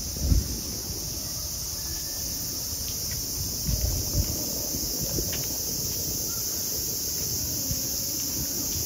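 A chorus of cicadas makes a steady high-pitched drone throughout. Irregular low thumps and rumble run underneath, with the loudest thump just after the start.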